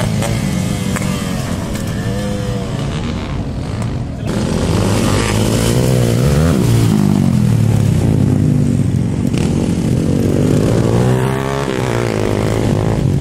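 Several dirt bike engines revving on a dirt track, their pitch rising and falling and overlapping as riders throttle through the turns. Louder from about four seconds in as bikes come close.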